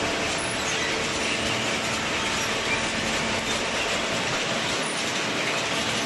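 Automatic waste-paper baler and its inclined chain conveyor running, a steady mechanical rattle as the conveyor carries cardboard up, with a faint steady hum beneath.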